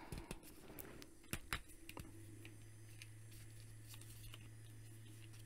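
Faint handling noise of a plastic action figure being turned over in the hands, with a few soft plastic clicks and taps about a second in. A low steady hum comes in about two seconds in.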